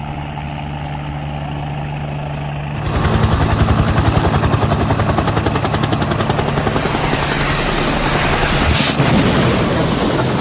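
AgustaWestland AW109 helicopter flying low overhead, with a steady engine and rotor hum. About three seconds in, it turns into a louder, rapid rotor chop.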